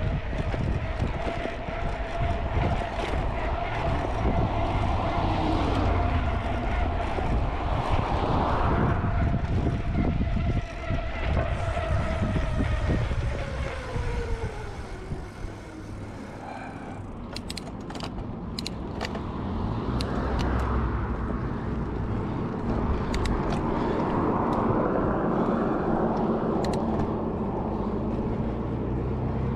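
Cars passing on the road, heard from a moving bicycle with a low rumble of wind on the microphone. About ten seconds in, a passing vehicle's tone slides down in pitch as it goes by; a few sharp clicks follow past the middle, and more cars swell past near the end.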